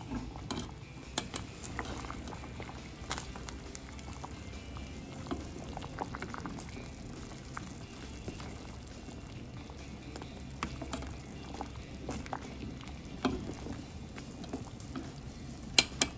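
Pot of saba banana slices boiling in brown-sugar syrup: a steady bubbling with scattered pops, and the clicks of a stirring ladle, two sharper ones near the end. After about ten minutes of boiling the bananas are not yet cooked through.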